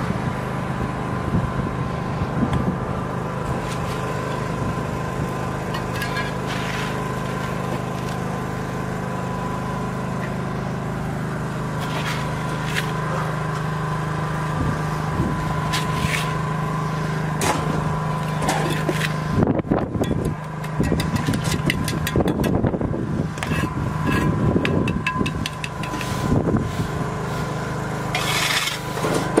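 An engine running steadily, with scraping and knocking of a shovel and hand tools on the asphalt and sand, coming thick and fast in the second half.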